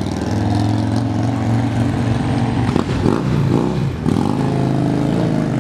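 Two big touring motorcycles riding past on a city street one after the other, their engines running steadily. The engine pitch shifts up and down about three to four seconds in.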